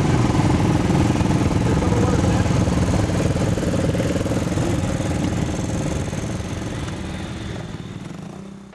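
ATV engine running steadily close by, with a fast even rattle; it fades out over the last few seconds.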